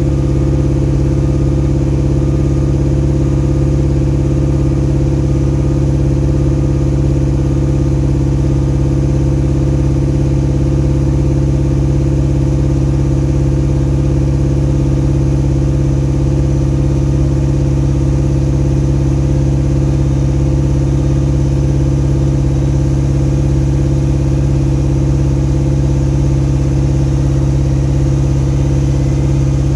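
An engine running steadily at a constant speed with an even hum, its pitch unchanged throughout.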